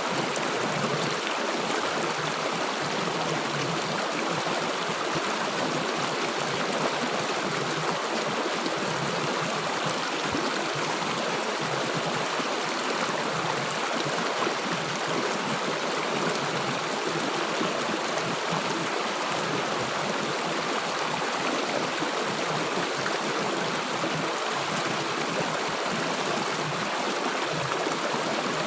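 River water rushing and gurgling over stones in a steady, unbroken flow.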